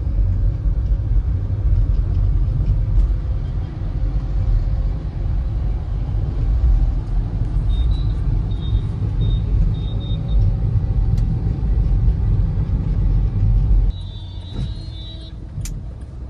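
Skoda Rapid diesel driving, with a steady low road-and-engine rumble and no front suspension knocking: the front lower-arm bush has been newly replaced. A few short high beeps sound about eight seconds in, and the rumble drops off abruptly near the end.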